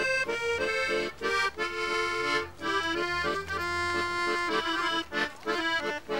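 Instrumental music: a melody of short, separate held notes from a reedy instrument over a faint low accompaniment.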